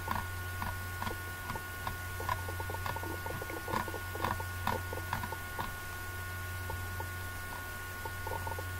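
Computer mouse clicks and scroll-wheel ticks, faint and irregular, over a steady low electrical hum.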